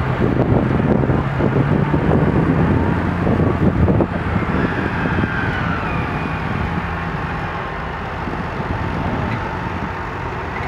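Large farm tractor's diesel engine running under load while ploughing, close and loud at first, then easing off after about four seconds. Faint whines glide up and down in pitch over the engine sound in the second half.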